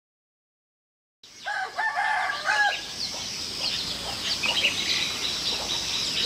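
Silence for about a second, then a rooster crowing over many small birds chirping.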